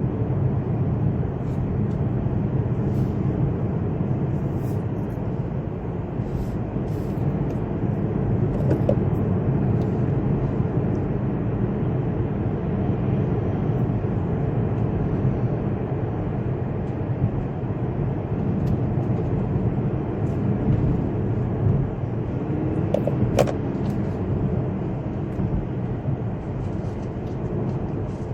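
Steady rumble of road and wind noise inside a moving car's cabin, with one sharp click near the end.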